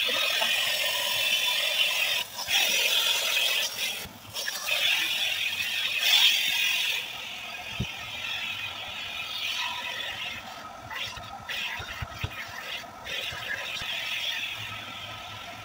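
Self-service car wash vacuum running, its hose nozzle sucking and scraping over the car's seats and floor. The sound drops to a quieter hiss about seven seconds in.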